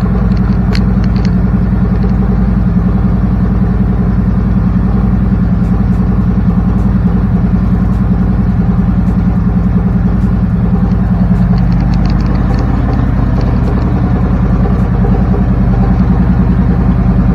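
Harley-Davidson Road King Special's Milwaukee-Eight 114 V-twin idling steadily.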